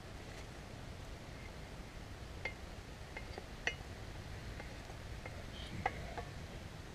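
About half a dozen light, irregular clinks of a utensil against a small metal skillet as fry bread frying over a campfire is poked and checked, over a faint steady hiss.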